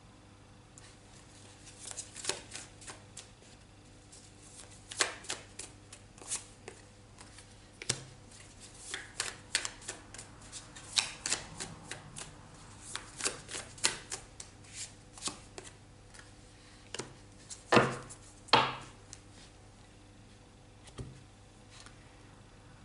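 Tarot cards being shuffled by hand and laid down on a wooden table: a string of quick, irregular card snaps and taps, with two louder slaps about three quarters through.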